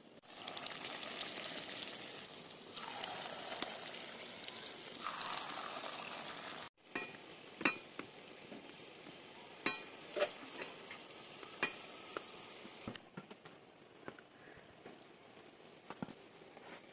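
Potato-and-egg fritters deep-frying in hot oil in a metal karahi, making a steady sizzle. The sizzle is louder for the first six or seven seconds as fresh fritters go in. After that it is quieter, with several sharp clicks of a metal spatula against the pan as the fritters are turned.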